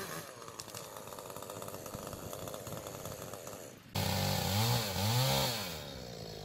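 Gas chainsaw cutting through a fallen tree trunk: after a quieter steady running sound, the saw comes in loud about four seconds in, its pitch rising and falling twice as it revs through the wood, then drops back to a lower run near the end.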